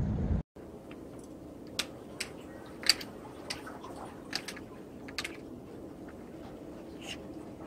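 Wind on the microphone cuts off abruptly within the first half second; after that, irregular sharp light clicks and ticks, the loudest about three seconds in, over a faint steady background.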